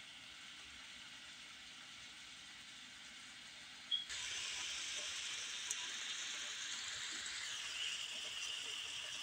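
Faint room hiss, then after a click about four seconds in, hamburger patties sizzling in a frying pan: a steady hiss of frying fat.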